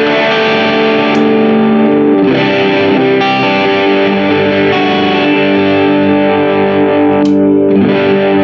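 Grote 335-style semi-hollow electric guitar with P90 pickups, played through distortion: sustained chords changing every second or so, with a short scratchy pick noise a little after seven seconds in.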